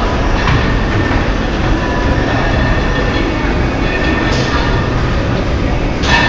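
A steady, loud low rumble with no clear strokes or rhythm; just before the end it turns brighter and louder.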